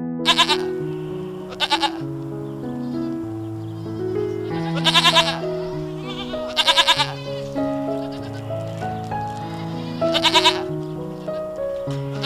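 A goat bleating five times, short wavering calls spaced unevenly a second to a few seconds apart, over background music with a steady melody.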